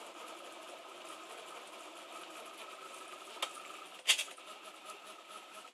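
Printrbot LC 3D printer's stepper motors whirring steadily as it prints. A sharp click comes about three and a half seconds in, and a louder brief clatter just after four seconds.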